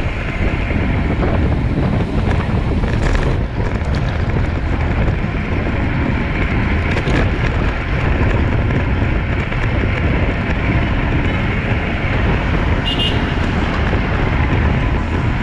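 Steady wind rushing over the microphone of a camera on a racing bicycle, mixed with road and tyre noise, with a few brief clicks.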